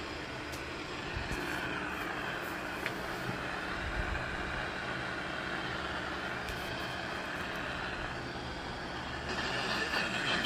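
Radio receiver hissing with static on the CB band between transmissions, over a low steady hum and faint wavering tones. The static gets louder and brighter near the end.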